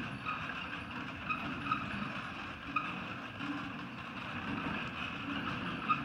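Four-wheeled horse-drawn marathon carriage rolling over sand footing behind a trotting horse: a steady rumble and rattle of wheels and carriage, with a few sharp clinks.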